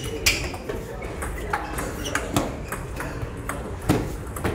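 Table tennis ball clicking off bats and the table during a doubles rally: sharp, irregular knocks, some with a short ringing ping. The loudest come about two and a half and four seconds in.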